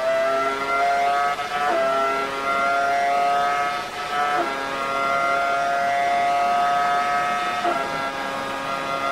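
Prost-Acer AP04's Acer-badged Ferrari 3-litre V10, heard onboard at full throttle down a straight. The pitch climbs slowly in each gear and is broken by three quick upshifts, each gear held longer than the one before.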